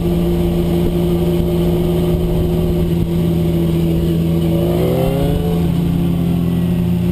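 2003 Suzuki GSX-R1000 K3's inline-four engine running at a steady note while cruising slowly, heard from on the bike. Between about four and five and a half seconds in, a second motorcycle's engine note rises and then falls as it comes alongside.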